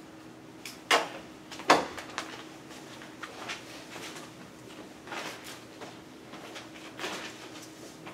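A few sharp knocks and clatters, the two loudest about a second in and just under two seconds in, with fainter ones scattered later, over a steady low hum.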